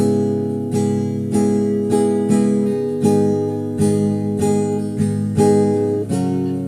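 Acoustic guitar strumming chords in a steady rhythm, with a chord change about six seconds in.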